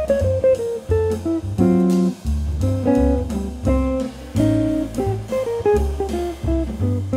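Background music: guitar playing plucked notes and short chords over a steady bass line, with no singing.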